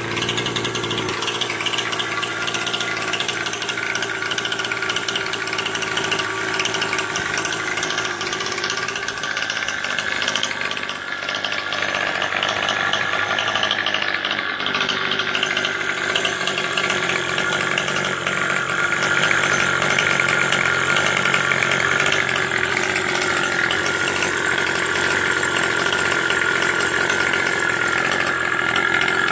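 49cc two-stroke pocket-bike engine on a motorized bicycle, running steadily at idle, its pitch drifting slightly up and down.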